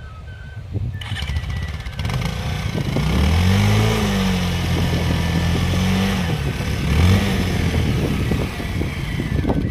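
Motorcycle engine revving: its pitch climbs about three seconds in, holds for a few seconds, drops, then rises briefly once more.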